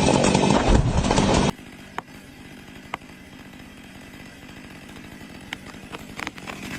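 Chainsaw running loud, cutting off abruptly after about a second and a half. A much quieter steady hum follows, with a few sharp clicks or snaps.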